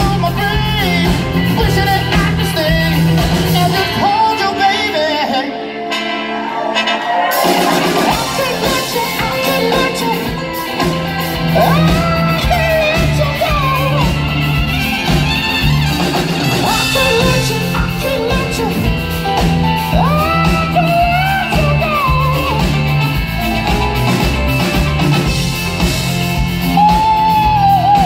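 Live soul band with a horn section, guitar, bass, drums and keys playing loudly, a singer's voice wailing over it. About four seconds in the bass and drums drop out for a few seconds, then the full band comes back in.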